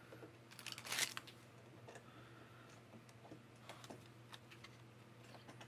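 Light handling noises on a workbench: a brief scrape or rustle about a second in, then scattered soft clicks and taps, over a faint steady hum.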